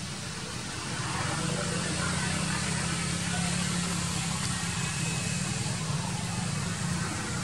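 An engine running with a steady low hum, which grows louder about a second in.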